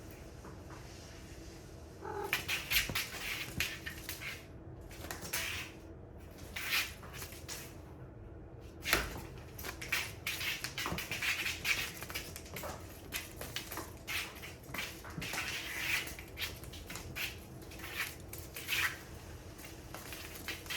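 Cats playing, with irregular rustling, scratching and light knocks throughout.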